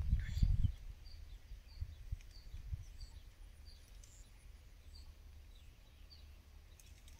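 A bird calling with short high chirps, repeated about once a second, over a faint low hum. A louder low rumbling noise stops under a second in.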